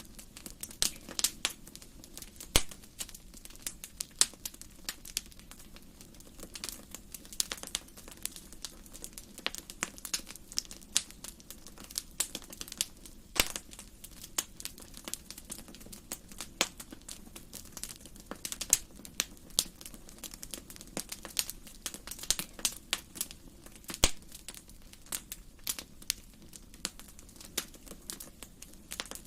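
Wood fire crackling in a fireplace: irregular sharp pops and snaps over a low steady hiss of burning, with a few louder pops scattered through.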